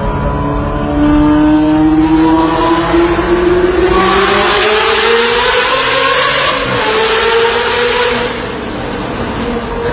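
A vehicle engine accelerating in a tunnel, its pitch climbing steadily, with a loud rushing noise swelling from about four seconds in and easing off near the end.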